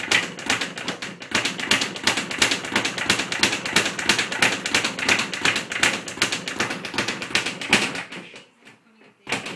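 Speed bag being punched in a fast, steady rattle of hits against its wooden rebound platform. The rhythm fades out about eight seconds in, with one more hit shortly before the end.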